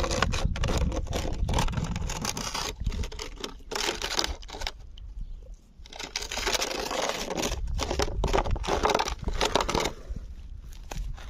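Bursts of crinkling and scraping noise close to the microphone, coming in clusters of a second or two with a lull about five seconds in, over a steady low rumble.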